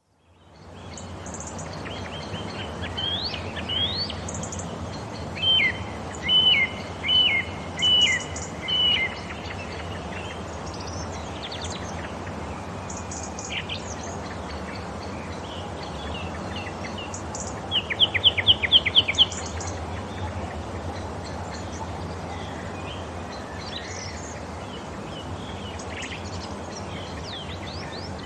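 Wild birds chirping and calling over a steady background noise, with a run of five loud repeated notes about six to nine seconds in and a quick burst of about eight notes around eighteen seconds.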